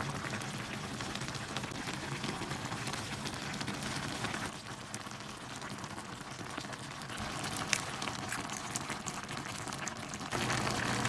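Army stew (budae jjigae) simmering in a shallow pan: a steady bubbling, crackling hiss dotted with small pops.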